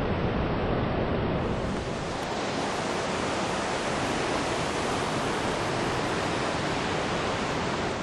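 Steady roar of a large waterfall, the whole flow of the Santiago River plunging about 90 metres into spray. The roar turns a little brighter about a second and a half in, then drops away abruptly at the very end.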